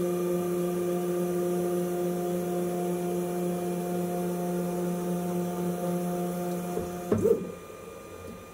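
WorkBee CNC router's stepper motors whining steadily as the gantry travels to its home position. The whine stops about seven seconds in with a brief short sound as the gantry reaches the end of its travel.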